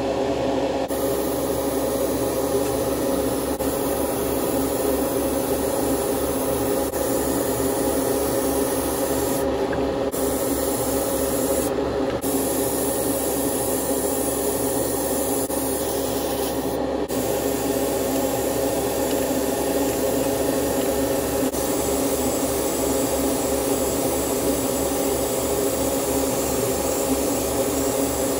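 Airbrush spraying clear varnish: a steady hiss of air and paint over a steady motor hum. The hiss breaks off briefly three times in the first two thirds.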